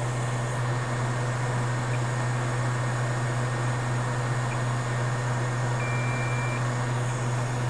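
Steady low hum from bench equipment, with one short high beep from the multimeter about six seconds in as its probe tests the board.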